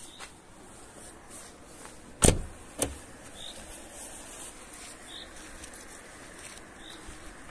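Two sharp thumps about half a second apart over a quiet outdoor background.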